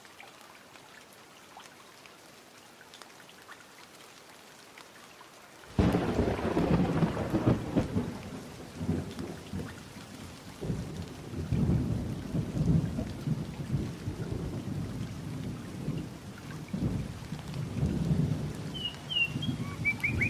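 Wind buffeting the microphone: a gusting low rumble that starts suddenly about six seconds in, after faint hiss. A few short high chirps come near the end.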